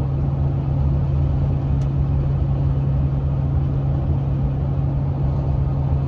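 Steady low drone of road and engine noise inside a moving minivan's cabin, with a constant deep hum under an even rumble.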